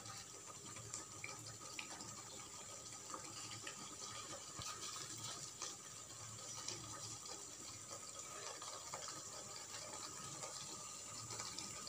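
Thick mutton curry gravy simmering in a pan on a gas burner: a faint, steady hiss with light, scattered pops.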